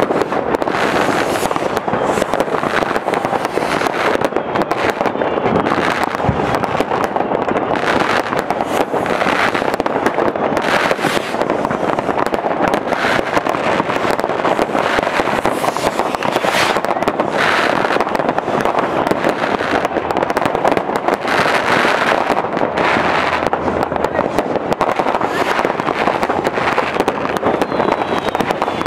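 Many fireworks rockets and firecrackers going off at once, a continuous run of bangs and crackles with no pause.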